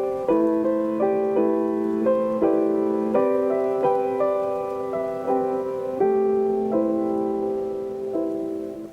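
Gentle background piano music, single notes and chords struck about once or twice a second, fading out near the end.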